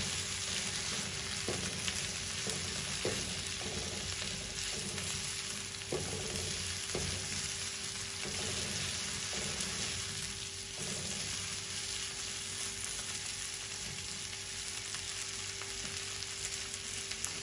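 Diced potatoes, cherry tomatoes and bell pepper sizzling in olive oil in a frying pan, stirred with a silicone spatula that scrapes and knocks against the pan now and then.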